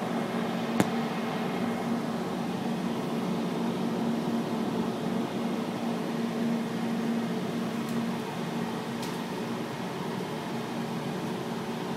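Steady hum inside a moving aerial tramway cabin, an even noise with a low held tone, as the cabin travels along its cables. A single sharp click about a second in.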